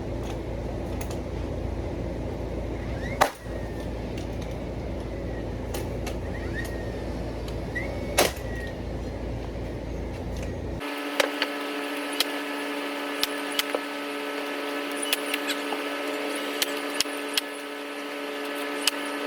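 A steady machine hum with several steady tones, broken by scattered sharp clicks and knocks. The deep rumble under it drops out abruptly about eleven seconds in.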